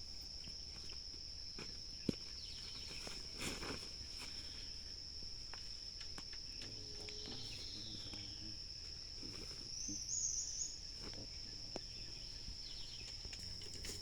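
Night insects, crickets or similar, trilling in one steady high-pitched drone. A few faint rustles, one sharp click about two seconds in, and a short warbling call around ten seconds in.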